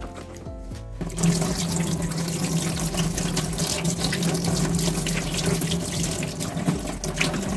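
Tap water running into a stainless-steel sink as a hand is rinsed under the stream. The water starts about a second in and runs steadily after that. Background music plays underneath.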